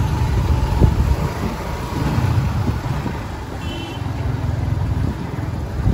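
Road vehicle noise: an uneven low rumble of a moving vehicle or passing traffic.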